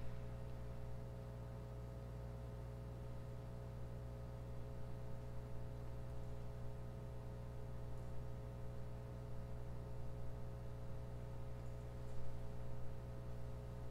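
Quiet room tone with a steady electrical hum of several unchanging tones, and a few faint knocks.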